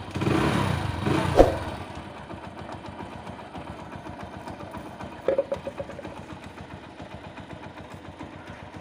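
Hero HF Deluxe motorcycle's single-cylinder four-stroke engine, freshly fitted with a new timing-chain tensioner pipe, is revved briefly with the throttle and then settles to a steady idle. There is a sharp click about a second and a half in.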